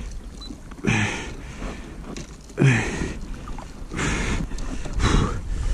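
A man grunting with effort twice, each grunt dropping in pitch, then breathing hard, while straining against a big catfish on a spinning rod. Low wind rumble on the microphone builds near the end.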